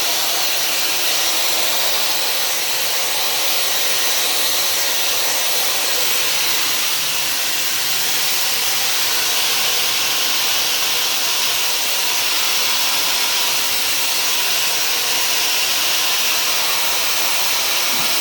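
Dyson Supersonic hair dryer with its diffuser attachment running steadily, giving a high, airy hiss.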